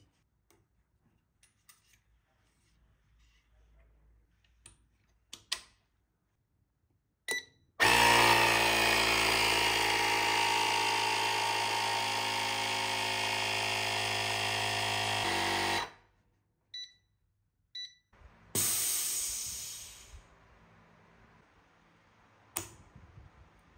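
A Nasan Supa Lite laminating machine runs a cycle. After a beep, its pump or motor runs loudly and steadily for about eight seconds and stops; two short beeps follow, then a hiss of air that fades over about a second and a half.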